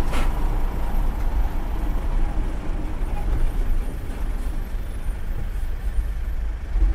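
Steady low engine and road rumble heard from inside a truck's cab while driving, with a brief click right at the start.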